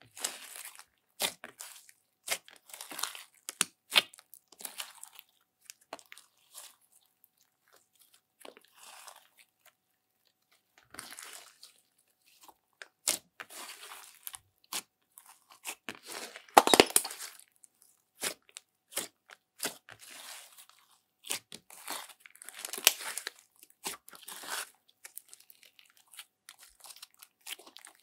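Thick slime mixed with soft clay being kneaded and stretched by hand: irregular sticky clicks and crackles as it is squeezed and pulled, loudest a little past halfway through.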